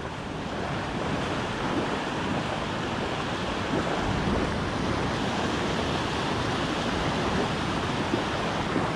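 Ocean surf washing in over a flat sandy beach: a steady rush of breaking waves, with some wind on the microphone.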